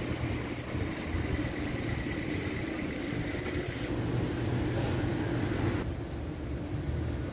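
Street traffic: the steady low hum of vehicle engines running on the street.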